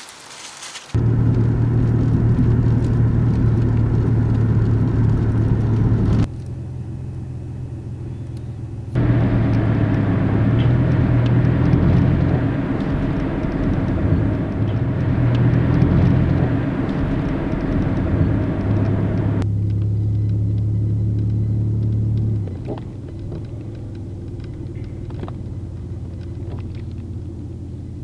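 Car engine and road rumble heard from inside a moving car. It changes abruptly in level and tone several times.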